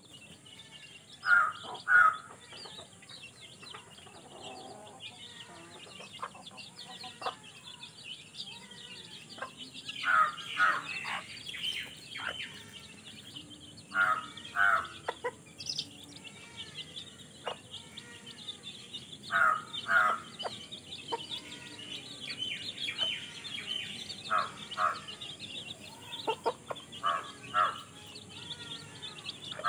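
A brood of young chicks peeping constantly around a mother hen, with a loud two-note call repeating every four to six seconds.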